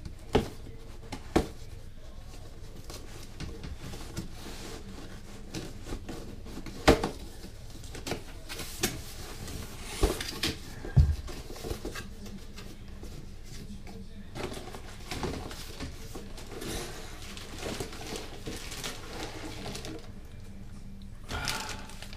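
Long cardboard tripod box being handled: scattered taps and knocks on the box, a dull thud about eleven seconds in as it is stood on end, then sliding and rustling as the plastic-bagged tripod is drawn out of it.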